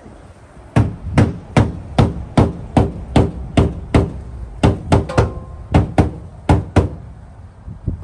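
Hammer striking the inner lip of an Acura RSX's rear fender from inside the wheel well: a steady run of about seventeen sharp blows, two or three a second, with a short break in the middle. The lip is being folded flat so the new, larger wheels and tires clear the fender.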